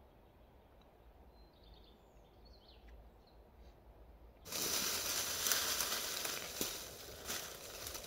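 Faint high chirps over a quiet outdoor background, then, a little past halfway, a sudden loud rustling and crunching with irregular crackles, like movement through dry vegetation.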